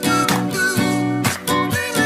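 Background music: a pop song's instrumental passage with strummed acoustic guitar chords in a steady rhythm, between sung lines.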